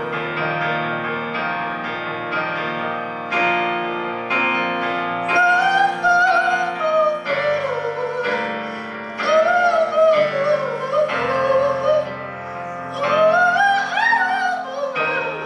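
Live singing with piano accompaniment: a voice carries a slow melody with vibrato and runs over sustained chords that change about once a second.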